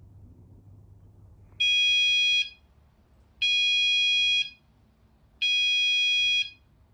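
Fire alarm sounder on an addressable fire alarm system, being tested: it sounds three steady, high-pitched beeps about a second long each, roughly two seconds apart.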